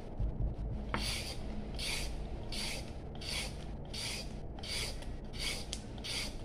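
A carrot being peeled into long strips by hand, the blade scraping along the carrot in a steady series of rasping strokes, about three every two seconds, starting about a second in.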